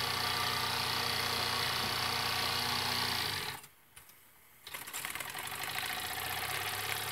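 Jensen #65 electric-heated live steam engine running with a steady rapid mechanical chatter. About three and a half seconds in it goes quiet as it is stopped. A second later it is restarted by hand in reverse, its slip eccentric taking up, and it ticks back up to speed.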